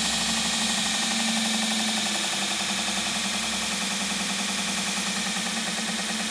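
Pruszyński belt grinder's single-phase motor, driven through a frequency inverter, running with its sanding belt spinning: a steady hum and belt whirr that slowly gets quieter as the speed is turned down on the inverter.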